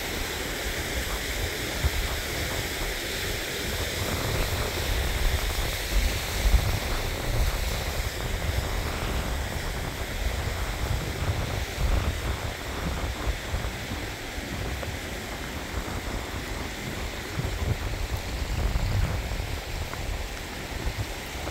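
Wind gusting on the microphone, over a steady rush of a mountain stream.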